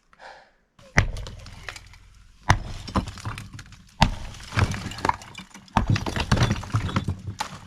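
Sledgehammer blows on a cinder-block wall: three heavy strikes about a second and a half apart, each followed by cracking and the clatter of broken block and rubble falling, with more clattering debris near the end.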